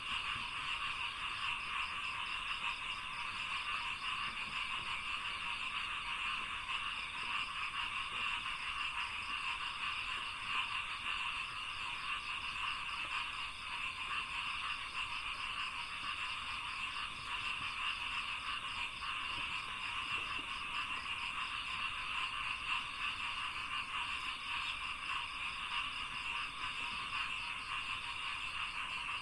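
A dense chorus of frogs calling continuously in a rice paddy, steady and unbroken, with a faint fast-pulsing trill higher up.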